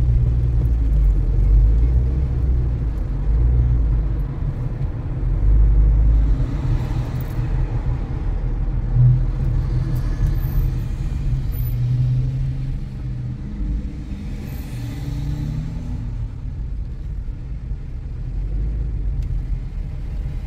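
Car road noise heard from inside the cabin while driving: a steady low rumble, with two brief swells of hiss, about a third of the way in and again about three-quarters through.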